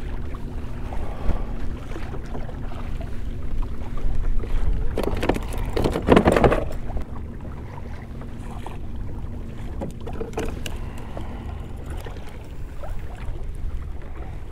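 Wind on the microphone and water lapping against a fishing kayak, with a louder burst of splashing and scuffling for a second or two about five seconds in as a salmon is brought to the boat. A few light clicks follow.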